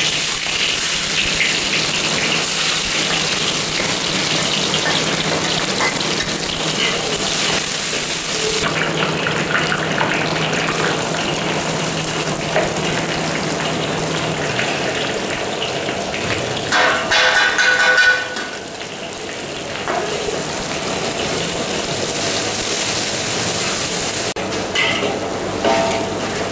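Sliced shallots, garlic and chillies sizzling in hot oil in a steel wok, stirred with a metal spatula: the steady frying hiss of the spice base being sautéed, with a brief louder burst a little past the middle.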